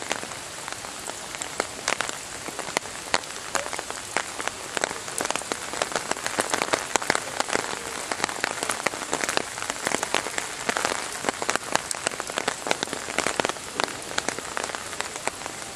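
Rain falling steadily, with many separate drops clicking sharply on hard surfaces over a constant hiss.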